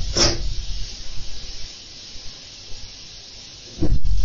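Hissing of a charging battery burning after it has exploded: a spurt of hiss right at the start that dies down to a quieter steady hiss, then a sudden loud rush of noise near the end.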